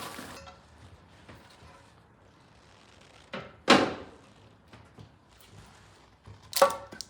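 A second-hand primary chaincase being offered up to a 1968 Norton Commando's engine, with light scrapes and taps, one loud clunk about halfway through, and a cluster of sharp metallic knocks near the end as it seats in place.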